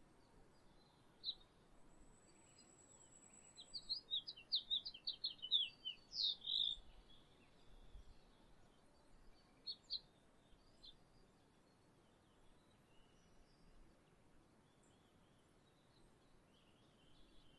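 Small songbirds chirping: a quick run of short, high chirps for about three seconds in the middle, with a pair of chirps a few seconds later and scattered softer ones around them. A faint, thin, high trill sounds about two seconds in.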